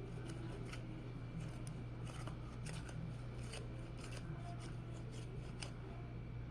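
Quick, irregular scratching and clicking of hand work with art materials on paper, several light strokes a second, over a steady low electrical hum.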